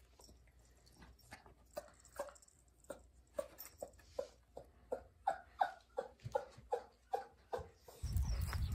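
Toy poodle at play with its toy: soft clicks, then a run of short squeaks that fall in pitch, about two or three a second. A louder rumbling noise comes in near the end.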